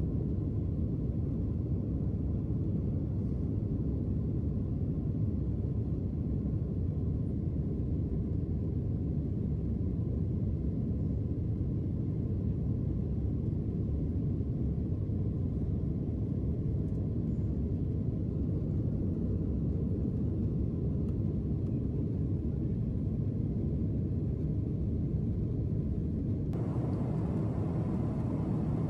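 Boeing 767-400 cabin noise heard from a window seat during the climb: a steady low rumble of engines and rushing air. Near the end a brighter hiss is suddenly added on top.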